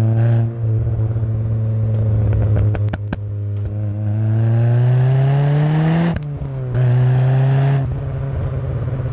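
Exhaust of a turbocharged 1.7-litre Ford Puma four-cylinder, heard at the tailpipe of its stainless turbo-back system with a Piper back box. The engine runs steadily under load, then revs up for about two seconds and lifts off about six seconds in. Pops and crackles come from the exhaust.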